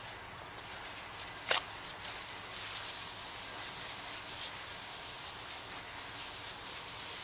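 A cloth scrubbing back and forth over a bare concrete floor, a rough, uneven hiss, as the alcohol-cleaned spot is wiped dry before a floor marker is applied. One sharp click about one and a half seconds in.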